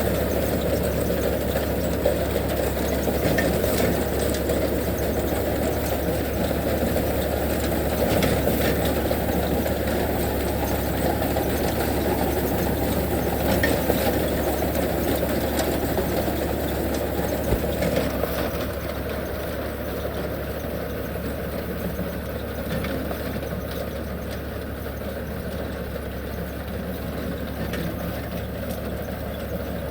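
Tractor engine running steadily with a low hum and rattle, getting a little quieter about two-thirds of the way through.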